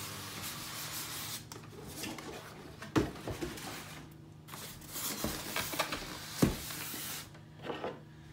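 A cardboard box sliding off a styrofoam shipping box with a dry rubbing hiss, then the foam box being handled with rustling and a few knocks, the sharpest about three seconds in and another about six and a half seconds in.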